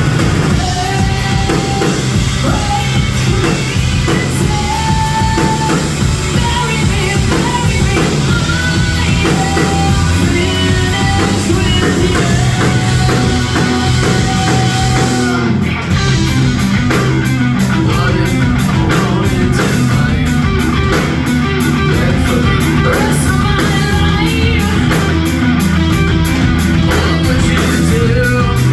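Live rock band playing loudly, drums, guitars and bass with a singer's voice over them. About halfway through, the drums change to a steady, evenly pulsing beat.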